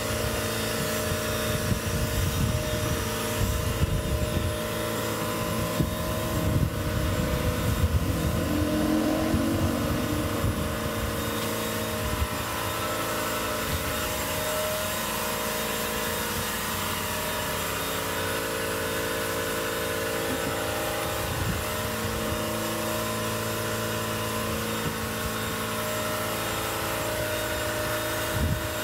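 Steady hum of a running machine, holding several fixed tones, with irregular low rumbling over it through roughly the first twelve seconds.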